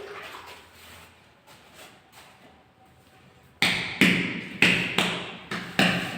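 A marble floor tile being tapped down into its mortar bed: about six sharp knocks in quick succession, starting about three and a half seconds in.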